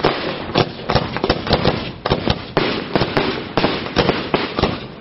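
Aerial firework shells bursting in a fireworks display: a dense, irregular run of sharp bangs, several a second, with a continuous rumble of noise between them.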